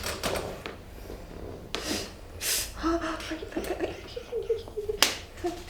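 A woman's sharp gasps and heavy breaths as she is worked on in a chiropractic adjustment, then short strained pitched moans, and a single sharp crack about five seconds in.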